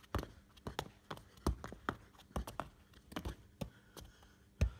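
Football being juggled with the feet and legs: an irregular string of dull taps and thumps, two or three touches a second, as the ball meets foot, shin and knee.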